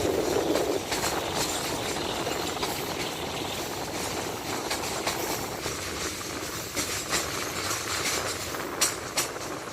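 A train running along the track: a steady rattle and rumble from the wheels and carriages, with a lower rumble that drops away about a second in and a few sharp clicks near the end.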